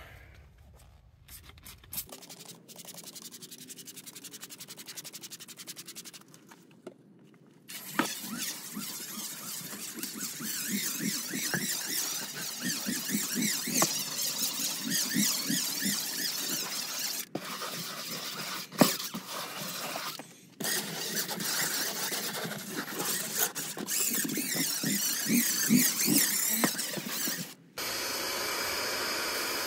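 Cordless DeWalt impact driver spinning a stiff drill brush that scrubs a car's cargo-area carpet, starting about eight seconds in and running in long stretches with a few brief stops. Near the end a carpet extractor switches to a steady hiss of suction.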